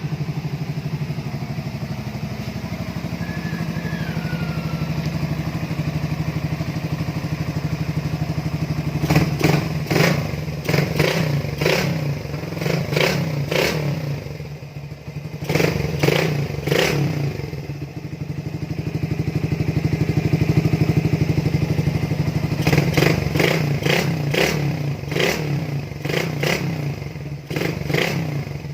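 First-generation Suzuki Raider 150 single-cylinder four-stroke engine breathing through an aftermarket canister muffler and a big-bore header elbow. It idles steadily for about nine seconds, then is revved in quick repeated throttle blips in three bursts, with short idle spells between them.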